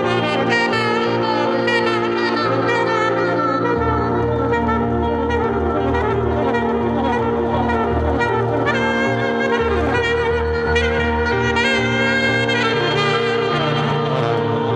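Free jazz duo improvisation: tenor saxophone playing quick, bending, wavering runs over low sustained notes held on a Nord Stage keyboard.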